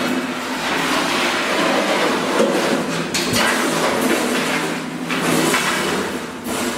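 Radio-controlled steel cart with hub-motor wheels driving about, a steady rattling, rumbling noise with a sharper knock about two and a half seconds in.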